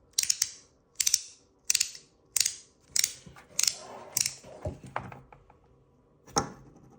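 Metal haptic fidget coin clicking as it is worked in the hand: sharp clicks, often doubled, about every half second, then one last click near the end.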